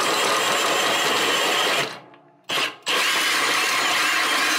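Milwaukee M18 Hole Hawg right-angle drill driving a 4-1/4-inch hole saw into a wooden wall stud, cutting unguided. It runs, stops a little before halfway, gives a short burst, then runs steadily again.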